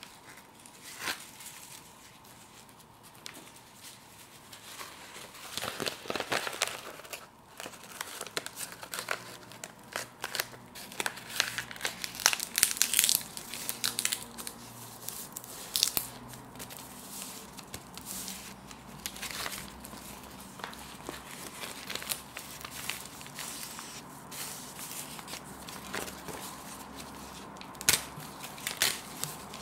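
A dry, crisp sheet of nori seaweed crackling and crinkling under the fingers as it is handled, folded in half and creased along the fold. The crackles come in irregular clusters, loudest about six seconds in, in a run around twelve to thirteen seconds, and again near the end.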